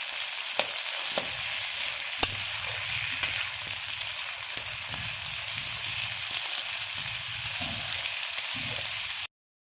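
Food sizzling and frying in hot oil in a pan while it is stirred, with sharp clicks of a spatula against the pan. The sizzle cuts off suddenly near the end.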